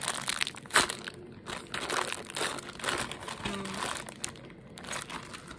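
Clear plastic packaging crinkling and crackling irregularly as hands squeeze and handle a homemade squishy inside it, with one sharper crackle just under a second in.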